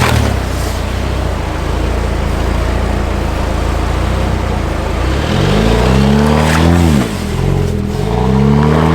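4x4 engine pulling on a rough trail with steady road and wind noise. In the second half it revs up and eases off twice.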